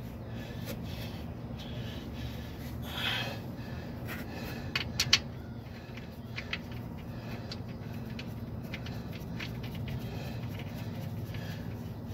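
A few sharp clicks and small scrapes from a gloved hand handling parts under the car, loudest in a short cluster about five seconds in, over a steady low hum.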